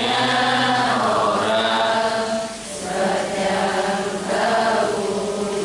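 A man chanting an Islamic devotional song from a songbook into a microphone, in long held notes: two sung phrases with a short breath between them about two and a half seconds in.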